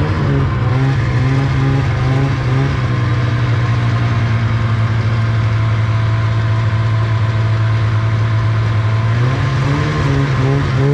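Snowmobile engine idling steadily, with a slight change in its note near the end.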